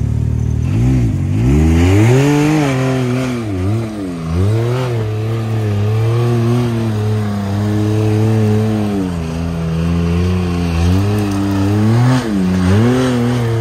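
Can-Am side-by-side engine working under load up a steep rocky climb, revving up about a second in, then repeatedly easing off and pulling again as the throttle is worked, with a long steady pull through the middle.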